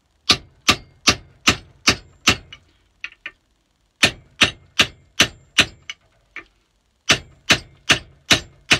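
Ball peen hammer striking a stainless steel drift to drive the old wooden handle stub out of a splitting maul head: sharp metallic blows in three runs of five or six, about two and a half a second, with short pauses and a couple of light taps between runs. The stub is held tight by steel wedges.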